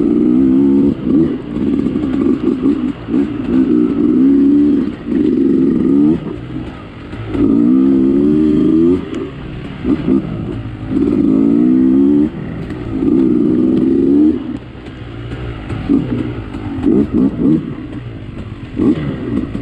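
Dirt bike engine revving up in repeated surges, its pitch rising through each one, with the throttle backing off briefly in between as it is ridden along a trail.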